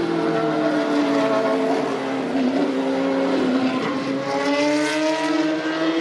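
A single-seater formula race car's engine at high revs. Its pitch falls over the first couple of seconds as the car slows for the corner, then climbs again from about the middle as it accelerates away.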